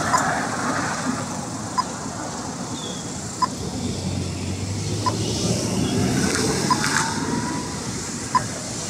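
Pedestrian crossing signal giving short, evenly spaced beeps about every second and a half while its red man shows, the slow wait beat, over passing traffic.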